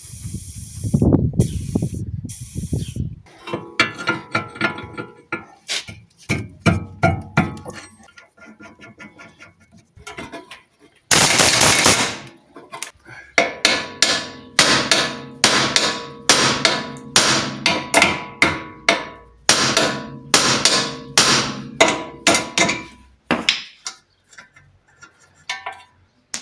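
Hammer blows on steel car steering parts: scattered knocks, then a long run of sharp ringing strikes at about two to three a second. Near the middle a loud hissing burst lasts about a second.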